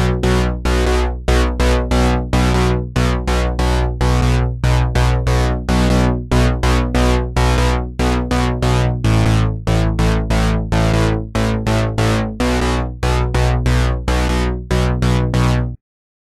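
Electronic keyboard music: a fast, even run of synthesizer notes over a steady bass line. It cuts off abruptly near the end.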